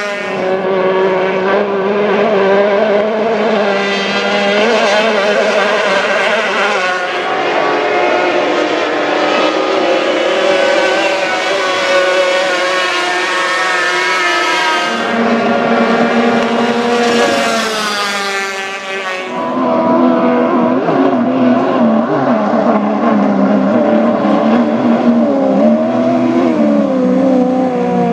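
Racing outboard engines of circuit powerboats running flat out as the boats speed past: a loud, high engine whine whose pitch wavers up and down. The sound changes abruptly a few times as one boat gives way to another.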